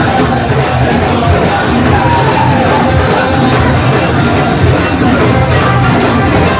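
Loud Indian dance song with a heavy beat and a singing voice, with a crowd yelling and cheering over it.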